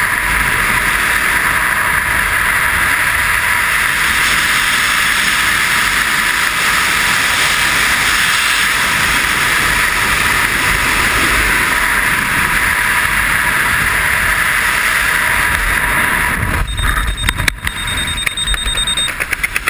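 Freefall wind rushing steadily over a skydiver's camera microphone. About sixteen and a half seconds in, the rush breaks into uneven flapping and gusts as the parachute deploys and opens, and a high steady tone sounds for a couple of seconds.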